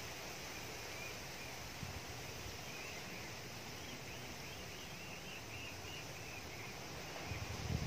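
A bird chirps a quick run of short, high, repeated notes, about three or four a second, over a faint outdoor background. A few low thumps come near the end.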